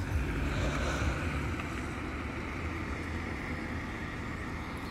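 Low vehicle engine rumble, heaviest in the first second or so and easing after.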